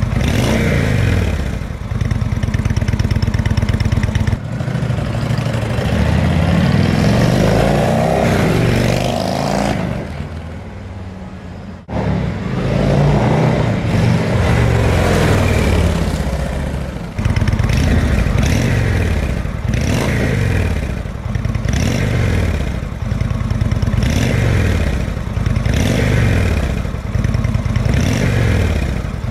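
Indian Chieftain V-twin breathing through Bassani Xhaust slip-on mufflers, being revved. It climbs through a longer rev in the first third and eases to a quieter low a little past a third of the way in. Then it picks up sharply into repeated throttle blips, about one a second, each rising and falling back.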